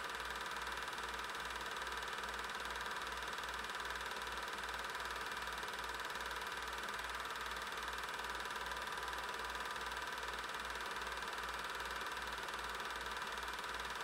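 8mm film projector running: a steady mechanical whir with a low pulse about three times a second.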